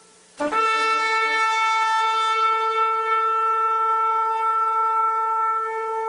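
Shofar blast: the end of the previous note fades out, then a new note starts sharply about half a second in and is held steady at one pitch, rich in overtones. It is the shofar sounded at the close of Yom Kippur.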